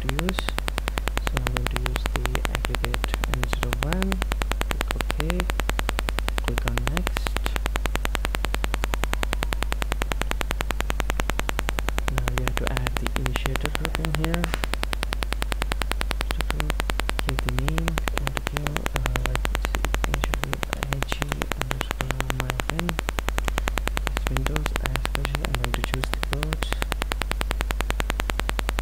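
Steady electrical buzz over a low hum from a malfunctioning microphone: constant noise with no pauses.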